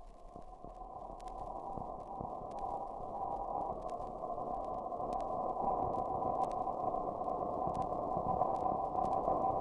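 Ambient musique concrète: a dense, grainy drone with a few held tones, fading in and growing gradually louder, with scattered faint clicks.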